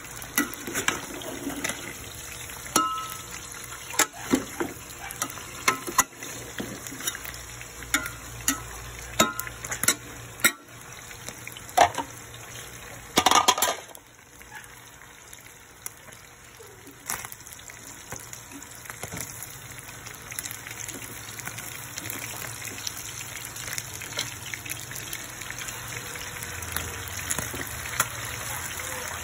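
A spatula stirring chicken pieces in oil in a metal pot, with repeated sharp clinks and scrapes against the pot through the first half. After that a steady frying sizzle that slowly grows louder.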